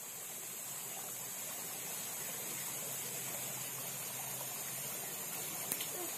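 Steady riverside background noise with an even high-pitched hiss. A short sharp tick comes about five and a half seconds in as the fishing rod is jerked up.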